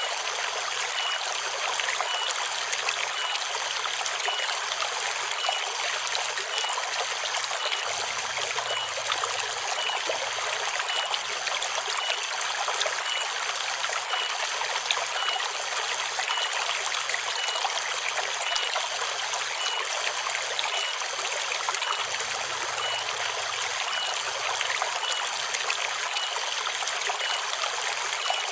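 Shallow forest river babbling and trickling steadily over stones, with cicadas keeping up a steady high drone behind it.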